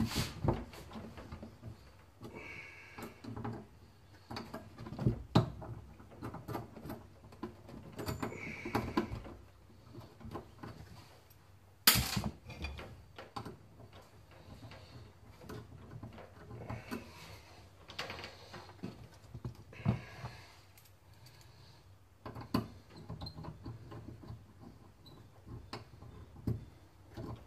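Small clicks, taps and scraping of hands working a thin metal pin tool and wire terminal into a plastic wiring connector, with one sharp click about twelve seconds in.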